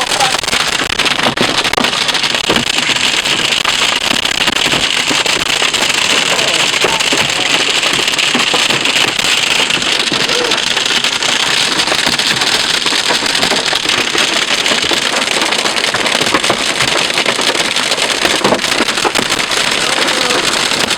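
Wind-driven hail pelting the chase vehicle: a dense, continuous clatter of countless impacts with no let-up.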